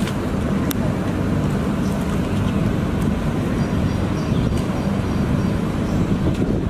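Steady low rumble of outdoor street and traffic noise, with a few faint sharp clicks.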